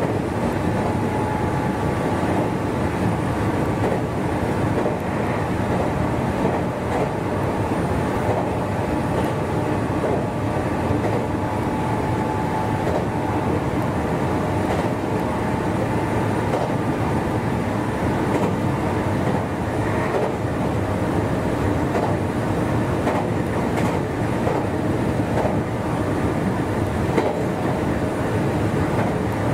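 Meitetsu 1200-series electric train running at speed, heard from inside the front car. There is a steady rumble of wheels on the rails, an occasional click as the wheels cross rail joints, and a faint steady whine.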